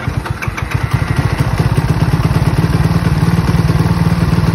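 Zongshen ZS190 190cc single-cylinder engine of a mini motorcycle starting and settling into a steady idle within about a second. The idle is set just over 2000 rpm and it runs through a new muffler with a baffle (dB killer) fitted.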